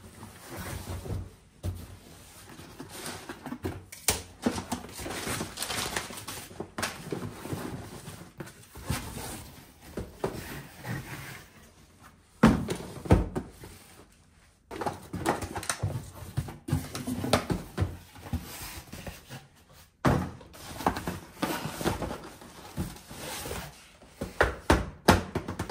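Cardboard delivery boxes being unpacked: packing paper and cardboard flaps rustling and crinkling, with knocks and thunks as shoe boxes are lifted out and set down on a countertop. A few louder knocks come around halfway and near the end.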